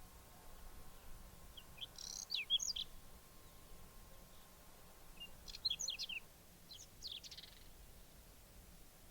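Whinchat singing: two short phrases of quick, high, jumbled notes a few seconds apart, the second followed by a brief buzzy note.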